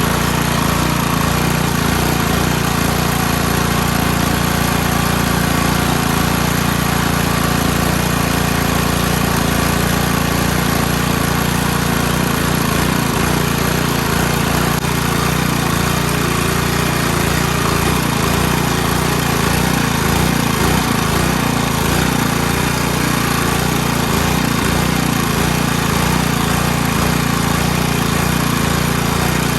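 Small gasoline engine running steadily at a constant speed.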